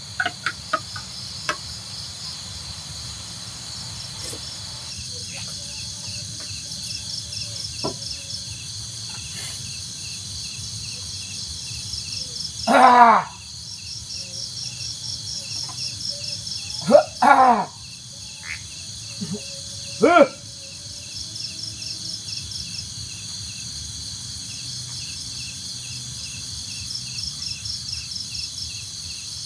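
Night chorus of crickets and other insects, a steady pulsing high chirring. Over it come a few loud, short pitched calls: one about halfway through, two close together a few seconds later, and one more soon after.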